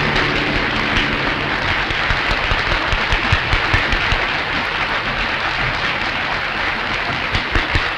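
Concert audience applauding steadily after a song ends.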